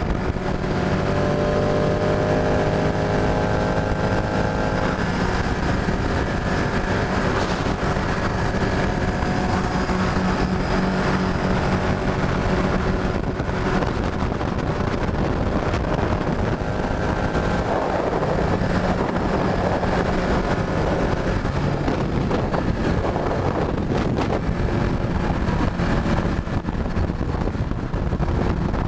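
Ducati 899 Panigale's Superquadro L-twin engine running steadily at highway cruising speed, with wind rushing over the microphone.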